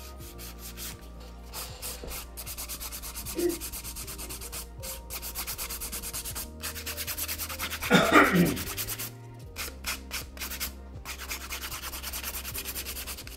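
Hand nail file rasping over acrylic nail extensions in quick, even back-and-forth strokes, shaping the side walls and around the cuticle. About eight seconds in, a brief louder sound stands out over the strokes.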